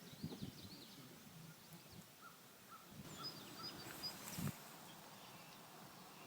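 Faint bird calls: scattered short high chirps, including a quick run of high notes about three seconds in. Low rustling and thumps run under the first half, with one louder thump about four and a half seconds in.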